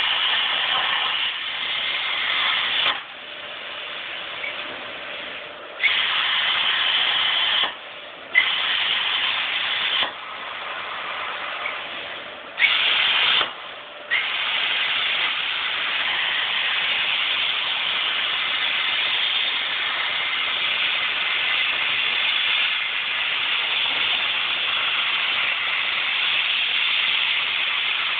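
Plasma cutting torch on a CNC table cutting steel plate: a loud, steady hiss of the arc and air jet. It cuts off and restarts sharply several times in the first half, with a quieter air hiss in the gaps, then runs without a break through the second half.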